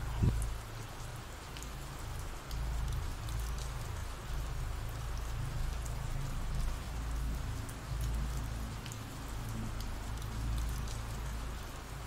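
Ambient rain sound effect: a steady hiss of rainfall with scattered drop ticks and a low rumble beneath.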